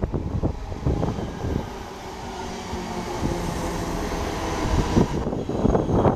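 Class 323 electric multiple unit running alongside the platform: a steady rumble of wheels on rail with a hum of several held tones from its traction equipment. Gusts of wind buffet the microphone near the end.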